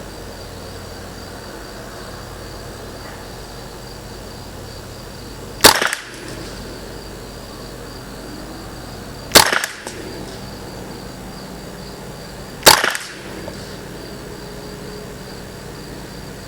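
Three single shots from a Ruger 10/22 Target semi-automatic .22LR rifle firing Lapua Center-X match ammunition, each a sharp crack, spaced three to four seconds apart.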